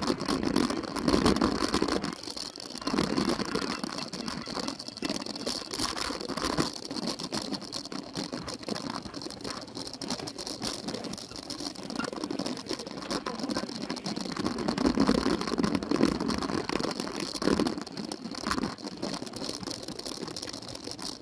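Cyclo-cross bike clattering and rattling over rough grass and dirt, heard from a camera mounted on the bike: a constant irregular clatter of chain and frame shaking, with tyre noise on the ground.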